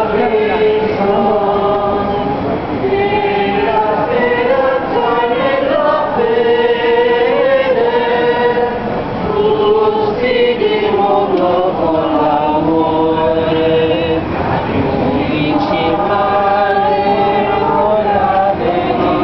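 A crowd of people singing a religious hymn together as they walk, in slow, long-held notes.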